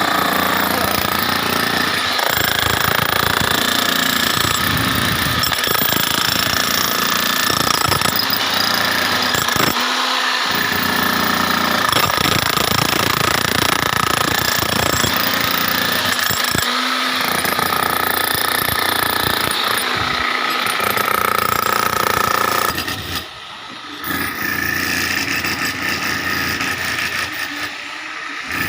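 Demolition hammer breaking up a floor, hammering steadily and stopping briefly several times.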